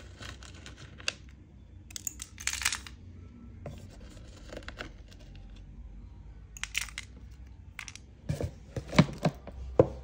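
Hands rummaging and scraping through slate pencil pieces and powder in a plastic storage box, with a cluster of sharp knocks near the end.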